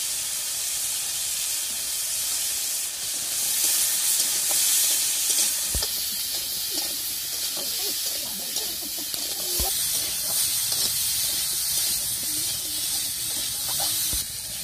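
Potato and aubergine pieces with spices frying in hot oil in an iron karahi, a steady sizzling hiss. A metal spatula knocks against the pan three times as the vegetables are stirred.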